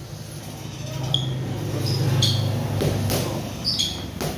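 Boxing gloves smacking into focus mitts: a few sharp punches, the last and loudest near the end. Between them come short high squeaks of sneakers on the gym mat during footwork.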